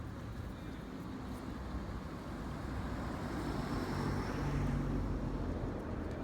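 A motor vehicle passing by: a low engine rumble that grows louder toward about four to five seconds in and eases off near the end.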